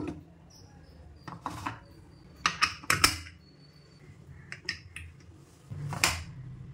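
Metal clinks and knocks of an aluminium Prestige Deluxe Plus pressure cooker's lid and whistle weight being handled as the cooker is closed, in a few separate bursts with a cluster about two and a half to three seconds in and another knock about six seconds in.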